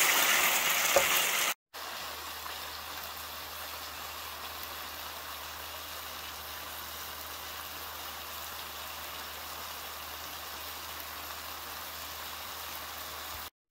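A spoon stirring caramelized onions in a nonstick skillet for about a second and a half. Then, after a brief gap, the onions simmer in a little water with a steady, even bubbling sizzle over a low steady hum.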